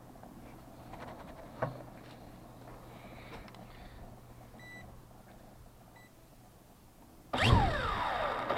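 A few faint knocks and clicks, then two short electronic beeps about four and a half and six seconds in. About seven seconds in, the MJX quadcopter's electric motors start suddenly with a loud propeller whir whose pitch slides down and up.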